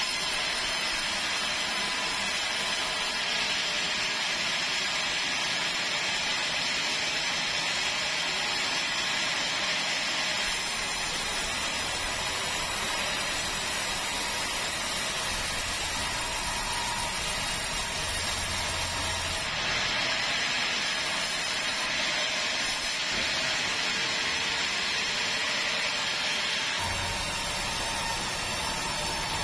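Band sawmill headrig running, its blade cutting a keruing log into boards: a steady, dense hiss-like noise, with a low rumble joining in at times in the second half.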